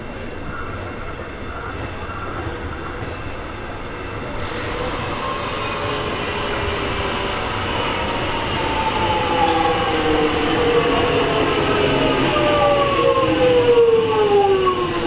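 X'trapolis electric multiple unit pulling into a station platform. The rumble grows louder as it draws alongside, and several whining tones from its traction motors fall steadily in pitch as it slows to stop.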